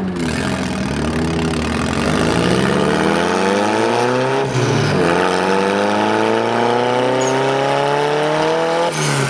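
Turbocharged Mazda Miata NA6 engine accelerating hard through the gears: the revs climb steadily, drop at an upshift about halfway through, climb again, and drop at a second upshift near the end.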